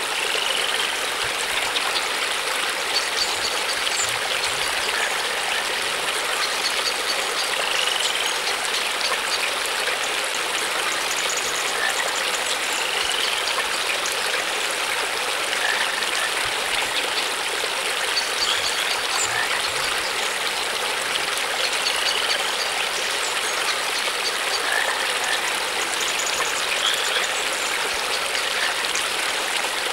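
Steady rushing of flowing water, like a stream, with short rising chirps that recur every few seconds.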